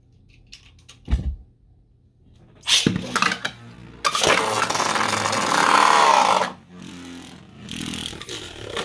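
Beyblade spinning tops in a plastic stadium: a knock about a second in, then the launch into the dish. The tops whir, scrape and clash loudly for a couple of seconds before the noise drops away.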